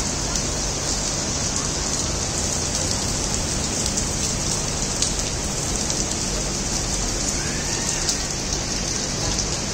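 Steady rain falling on paving, trees and buildings: an even, unbroken hiss of rain.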